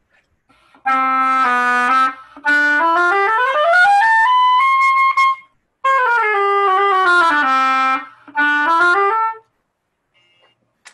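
Oboe played in short phrases: a held low note, a run climbing about two octaves to a held high note, then a falling line back to the low register and a brief low phrase near the end.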